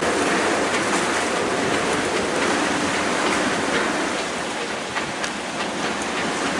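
Hurricane wind howling through a sailboat's rigging at anchor: a steady rushing noise.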